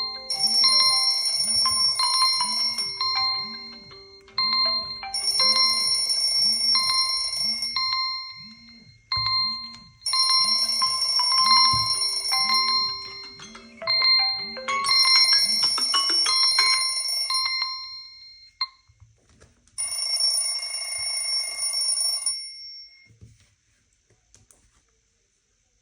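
Smartphone alarm and timer tones sounding together: electronic beeps and chime-like melodies repeating in bursts of about three seconds with short gaps, over a low pulsing hum that beats about one and a half times a second and stops about two-thirds of the way through. The sounds end a few seconds before the close.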